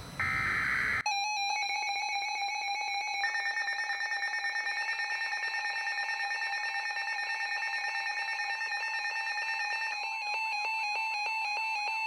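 Emergency alert broadcast tones: a short warbling data burst of the alert header, then about a second in the steady, harsh two-tone attention alarm that announces a weather warning message.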